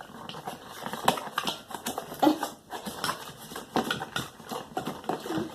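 A spoon stirring glue and slime activator in a bowl: irregular clicks and knocks of the spoon against the bowl.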